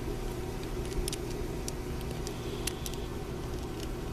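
Light, sharp metallic clicks and taps, about half a dozen scattered irregularly, from small revolver parts, screws and a screwdriver bit being handled, over a steady low background hum.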